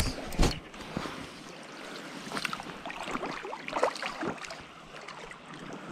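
Shallow stream riffle running, a steady watery rush broken by scattered small splashes and knocks.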